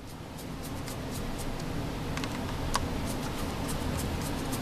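Small screwdriver working the screws at an Andis Master clipper's lever, a run of light, irregular metal clicks and ticks, several a second, over handling noise.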